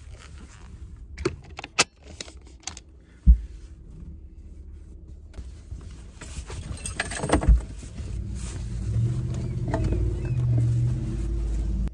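Bedding rustling and knocks as someone clambers around inside a vehicle cabin, with sharp clicks early on and one heavy thump about three seconds in. A low, steady rumble comes in over the last few seconds.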